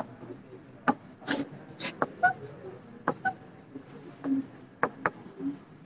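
A stylus tapping and clicking on an interactive display's screen while writing, in short, sharp, irregular taps, with brief faint room noises between them.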